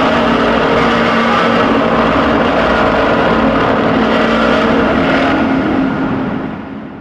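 Custom Godzilla-style monster sound effect for Gigantis: a long, loud, steady rushing blast with a steady hum underneath, fading away over the last second or so.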